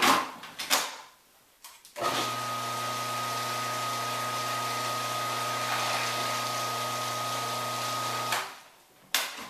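Electric food processor motor running steadily for about six seconds while it purees cooked sweet potatoes with butter and seasoning, with a low hum and a thin high whine, then stopping. Two clicks come before it starts and one after it stops.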